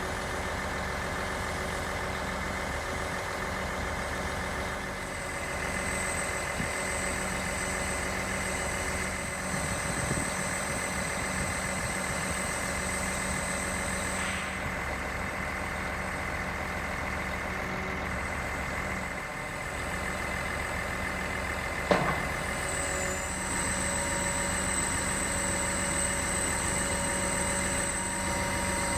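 Mercedes-Benz Actros concrete pump truck's diesel engine running steadily, with a thin high whine over it and a single sharp knock about three-quarters of the way through.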